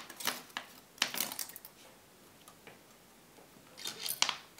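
Thin craft wire being twisted by hand around a bead at the tip of a beaded wire scorpion tail: short clicks and scrapes of wire against bead in a few clusters, the loudest about four seconds in.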